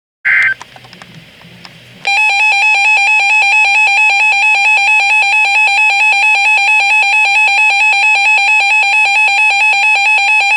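Emergency Alert System broadcast: a short data-burst chirp, then a loud, steady, harsh emergency alert attention tone that starts about two seconds in and cuts off near the end.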